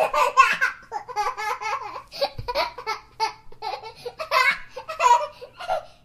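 A young child laughing in a long run of quick, high-pitched bursts that start abruptly.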